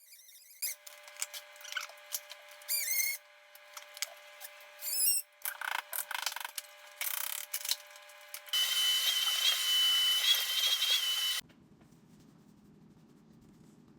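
Scattered clicks and rubbing sounds over steady tones, then a power tool runs loud for about three seconds with a high whine and stops suddenly.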